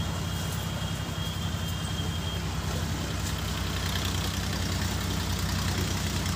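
A steady low engine drone, like an idling motor, runs throughout. Under it is the hiss of a large pot of sugarcane juice and rice at a rolling boil as a ladle stirs it.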